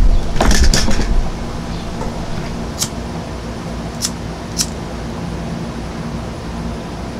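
A low rumble of wind on the microphone for about the first second, then a steady low background hum. Three short, sharp clicks come a few seconds in, from fingers picking at the hardened tip of a nylon starter cord.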